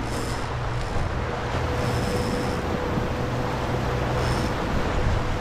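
A game-fishing boat's engine running steadily under way, mixed with the rush of the churned wake and wind on the microphone.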